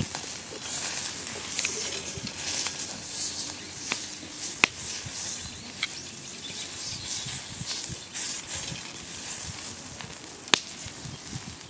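Steady sizzling hiss with sharp crackling pops; the two loudest come about four and a half and ten and a half seconds in. The source is a wood fire in a small folding fire stand, with beef skirt cooking on a thick steel griddle plate above it.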